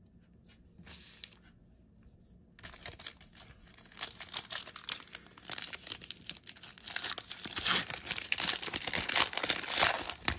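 Trading-card pack's foil wrapper being torn open and crinkled. It starts about two and a half seconds in as a dense crackle and grows louder toward the end.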